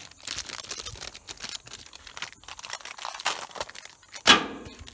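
Irregular rustling and crinkling handling noise, as of a wire brush being pulled out of its packaging, with one sharper, louder rustle about four seconds in.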